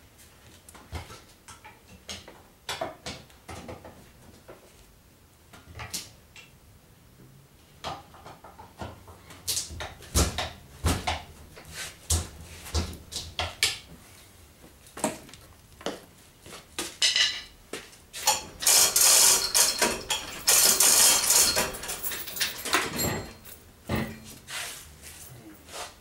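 Scattered metal clinks and knocks of tools and parts being handled in a car's engine bay, with a louder run of rattling and rustling lasting about five seconds in the second half.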